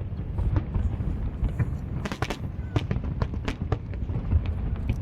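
Fireworks display: aerial shells bursting in irregular sharp bangs and crackles over a steady low rumble of distant booms.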